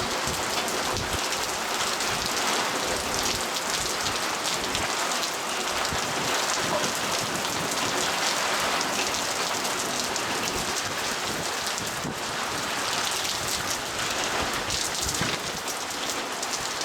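Storm of heavy rain mixed with hail, a dense steady patter of countless small hits on surfaces.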